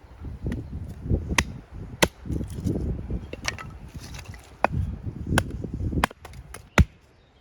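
Axe splitting small pieces of dry firewood into kindling: a series of about eight sharp chops at uneven spacing, roughly one a second, with the rustle and knock of wood being handled between strikes.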